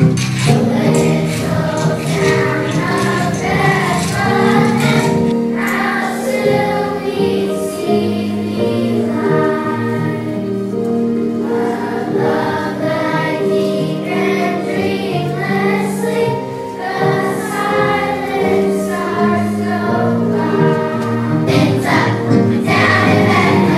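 A choir singing a slow song in long held notes.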